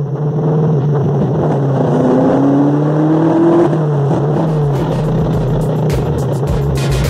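Ferrari Dino 308 GT4's V8 engine heard from inside the cabin while driving: a steady drone that climbs in pitch as the car accelerates, from about two seconds in to nearly four seconds in.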